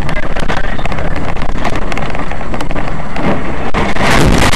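Loud, rough vehicle and wind noise picked up by a dash camera's microphone, with many crackles. It grows denser and harsher near the end.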